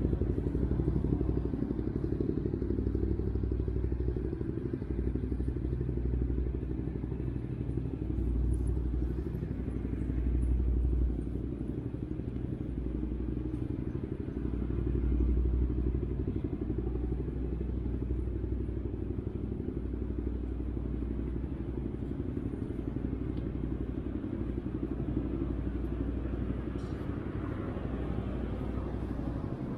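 Steady low rumble of motor vehicle traffic on a city street, with the hum of running engines.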